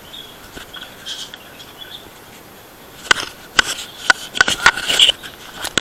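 Handling noise on a handheld action camera: after a quiet stretch, a quick run of sharp clicks and knocks starts about three seconds in, as the camera is gripped and moved.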